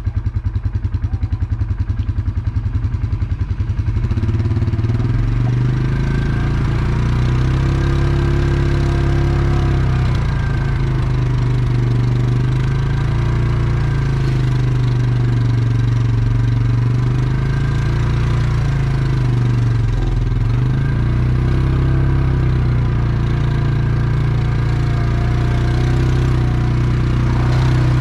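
ATV engine idling with an even, rapid chug for about four seconds, then pulling away and running along a dirt trail, its pitch rising and falling with the throttle.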